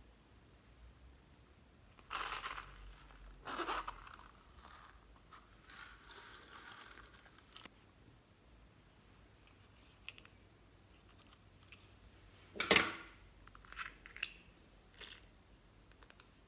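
Hands handling small plastic objects: scattered light rustles and clicks, with one sharp, louder click about three-quarters of the way through.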